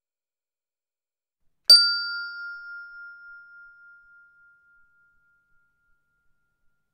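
A single bell-like chime struck once about two seconds in, its clear tone ringing out and fading over about four seconds with a slight wavering.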